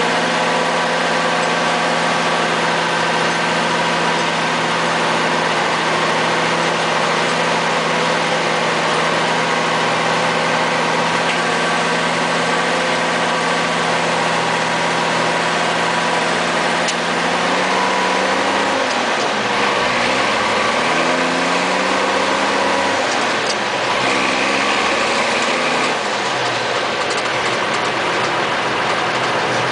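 M109A3 2½-ton army shop van truck's multifuel diesel engine running, heard from inside the cab. It runs at a steady speed, then, a little past the middle, the engine speed rises and falls several times before it settles steady again.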